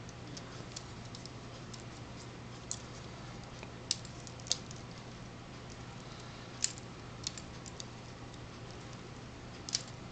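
Scattered light plastic clicks and ticks from a Lego Technic hand as its string-pulled fingers flex and the parts knock together, over a steady low hum.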